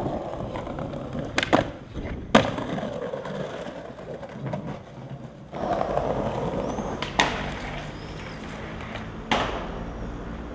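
Skateboard wheels rolling over stone paving, with several sharp clacks of the board's tail popping and the board landing, spread through the clip.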